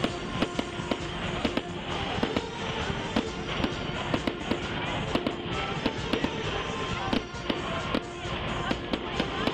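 Aerial fireworks going off in rapid bangs and crackles, several a second, with music playing underneath.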